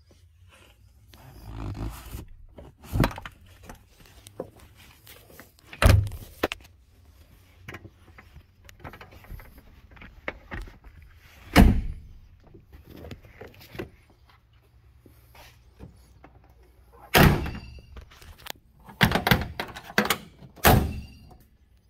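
A series of heavy thunks and clunks from a 1989 GMC Suburban's rear bench seats being folded and latched, with rustling handling in between. Near the end come a few quick clunks from the door handle and door.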